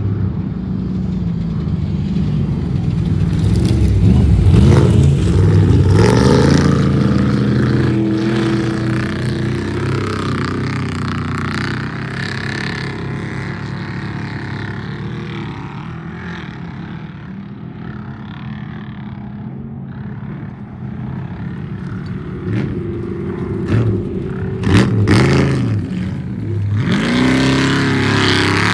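Off-road race trucks' engines revving and passing by, their pitch rising and falling. The loudest passes come about four to six seconds in and again around twenty-five seconds in.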